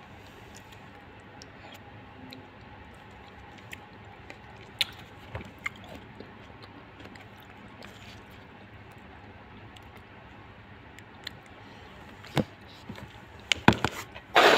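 Spoon clicking and scraping in a plastic cup of half-frozen mango corn shake, with quiet chewing and a few sharp clicks. Near the end there is a louder rustle as the phone is handled.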